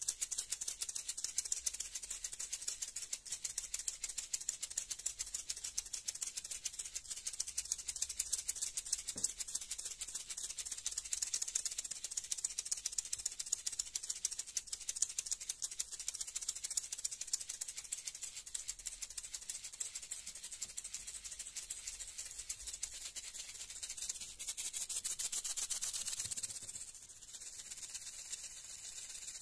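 Maracas shaken rapidly and steadily, a dense rattle of beads. Near the end the shaking turns into a smoother, louder swish for a couple of seconds, then goes softer.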